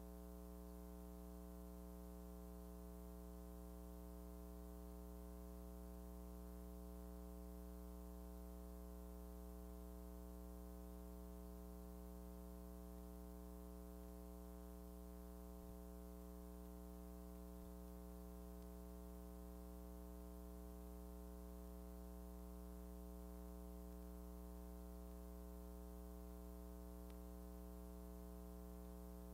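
Near silence: a faint, steady hum with many evenly spaced overtones that stays unchanged throughout, under the silent film footage.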